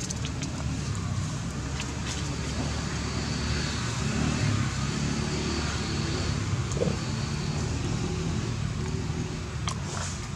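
Steady low rumbling outdoor background noise that swells slightly around the middle, with a few faint clicks and a thin high tone for a few seconds.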